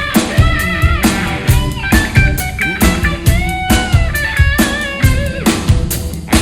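Live rock band playing an instrumental passage: lead guitar with bending notes over a steady drum beat, with Hammond organ in the band.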